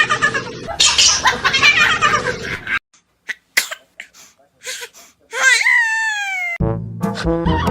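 A person's voice laughing, then a few light clicks, a single cat meow rising and falling in pitch about five and a half seconds in, and brass-band music starting near the end.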